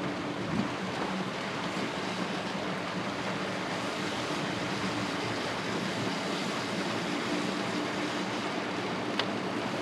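Steady rushing noise with a faint low hum underneath, and a single short click about nine seconds in.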